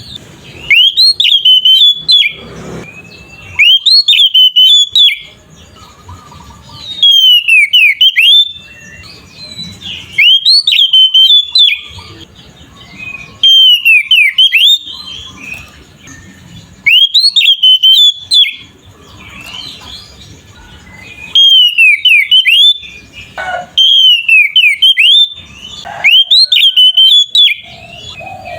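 Oriental magpie-robin (kacer) singing loud, clear 'ngeplong' song: phrases of quick whistled notes sweeping up and down, repeated every few seconds with short pauses between.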